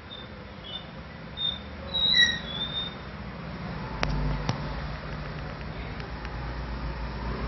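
A few short high chirps about two seconds in. From about four seconds a steady low engine rumble of a road vehicle sets in, with two sharp clicks just after it starts.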